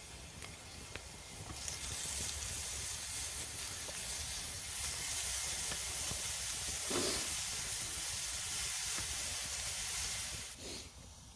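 A steady hiss from cooking over the fire, building up about two seconds in and cutting off suddenly near the end.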